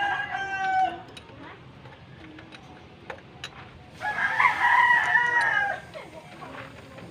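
A rooster crowing twice: one call ends about a second in and a second, louder call runs from about four to six seconds in. A few faint clicks come in between.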